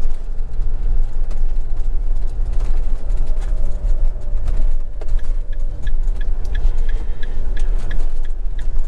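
Swift Kon-Tiki Sport 574 motorhome's Fiat Ducato diesel engine running with road noise as it drives slowly along a lane, heard from inside the cab. From about five and a half seconds in, the turn indicator ticks steadily, about three ticks a second, as it signals to turn right.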